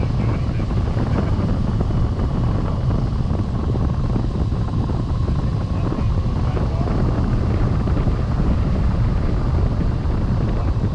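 Steady rush of wind buffeting the microphone of a camera fixed to a hang glider in flight, the airflow over the glider making a constant low rumble.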